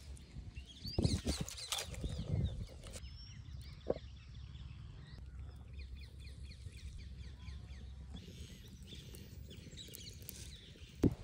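A hand working wet onion vada batter in a steel bowl, with soft handling knocks, then small birds chirping over and over over a steady low background rumble.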